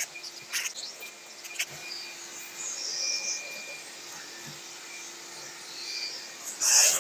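Shop vac running with a brush nozzle worked along the gap between the rear glass and the body, sucking up loose debris: a steady motor tone under short scratchy bristle sounds, with a louder rush near the end.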